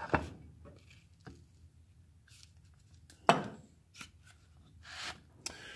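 Handling noises from opening up an old electric fan's metal base: scattered knocks and clatter of metal parts, the loudest a sharp knock with a short ring a little over three seconds in, and a brief scrape near the end.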